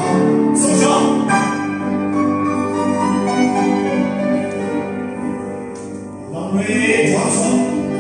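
Ballet class accompaniment music playing, with sustained melodic notes and a bright shimmer about a second in and again near the end.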